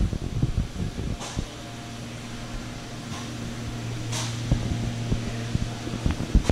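Steady low hum of ventilation or machinery in a large workshop. Over it come soft thumps and rubbing from a handheld microphone being carried while walking, and two short hisses, about a second and about four seconds in.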